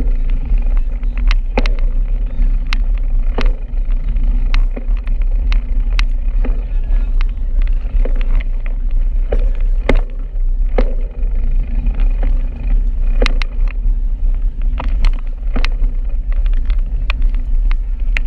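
Steady low wind rumble on the microphone and rolling road noise while riding a bicycle, with irregular sharp clicks and knocks about once or twice a second.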